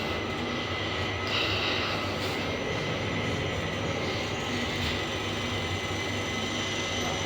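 Passenger lift car travelling upward, heard from inside the car: a steady ride rumble and hum with a faint constant whine.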